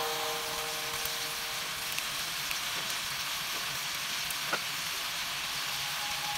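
Pork ribs sizzling as they fry in a pot: a steady hiss, with one small pop a little past the middle.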